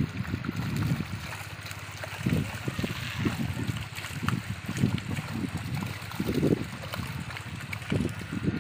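Shallow water splashing and trickling as a dense mass of small catfish wriggle at the surface of a netted tank, a steady fine crackling hiss. Irregular low rumbles of wind on the microphone run through it.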